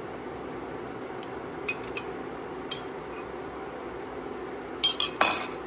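Utensils clinking against a stainless steel pot and dishes: a few light taps, then a quick cluster of louder clinks near the end, over the steady bubbling of creamy soup simmering in the pot.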